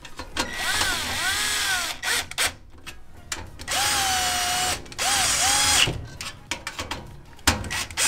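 Cordless drill-driver driving in the mounting screw of a gas furnace's hot surface igniter, in about four short runs. Its motor whine rises and falls with each trigger pull, and small clicks follow near the end.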